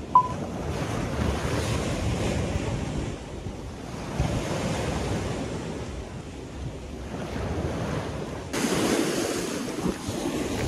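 Small waves washing onto a sandy beach, with wind buffeting the microphone; the surf gets louder and closer about eight and a half seconds in. Just after the start, a brief high beep sounds once.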